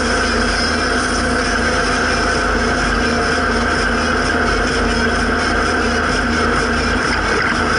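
Zetor 7340 tractor's four-cylinder turbo diesel engine running steadily as the tractor drives along, heard from inside the cab.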